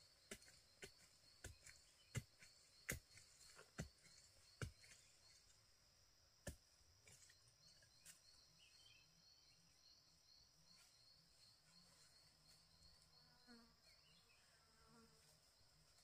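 A digging tool strikes soil and roots in short, sharp knocks about twice a second while a yam tuber is dug out; the knocks stop after about six seconds. Beneath them an insect's high, evenly pulsing trill carries on.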